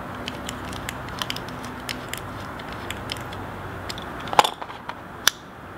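Small clicks and scrapes of a precision screwdriver turning a screw into a folding knife's handle, then two sharper taps near the end as the driver is set down on the mat.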